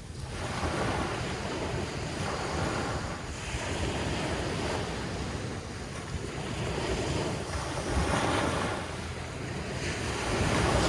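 Atlantic Ocean surf breaking and washing up the beach, swelling and easing every few seconds, with wind buffeting the microphone as a low rumble underneath.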